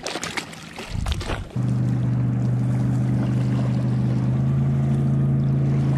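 A few splashes and handling noises as a small smallmouth bass is let go into the shallows, then, after about a second and a half, a steady engine hum starts suddenly and holds an even pitch.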